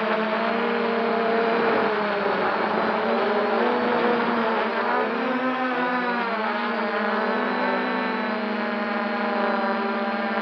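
Quanum Venture quadcopter's electric motors and propellers whining in flight over a rush of wind and prop wash, as heard by a camera mounted under the airframe. Its pitch dips and wavers for a few seconds about halfway through as the motors change speed, then settles again.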